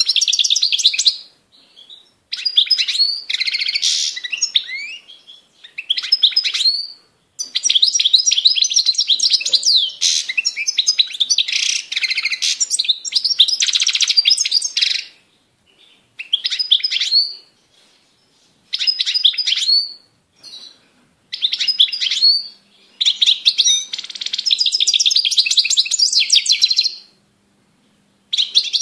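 European goldfinch singing: bursts of rapid twittering notes, each phrase lasting from about one to five seconds, with short pauses between phrases.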